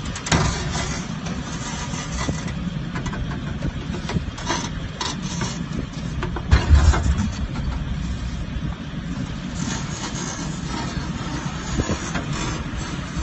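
Heavy truck's diesel engine running steadily while winching a 400-barrel tank onto its deck, with scattered knocks and a loud low thump about six and a half seconds in.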